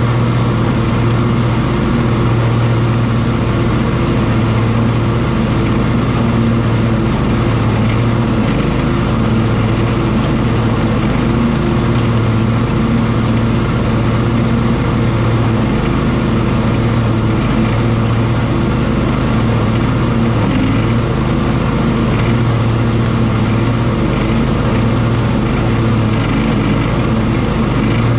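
Cub Cadet XT1 ST54 riding lawn mower running steadily while mowing tall grass and weeds, the engine's hum and the cutting deck's noise holding level throughout.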